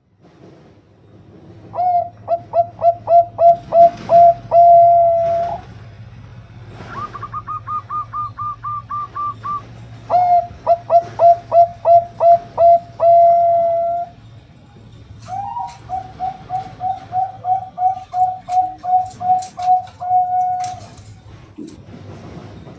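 Bangkok-type zebra dove (perkutut) cooing: three phrases, each a run of quick low coos ending in a longer held note. Between the first two phrases comes a higher, faster run of notes, and sharp high chirps sound over the last phrase. A steady low hum runs underneath.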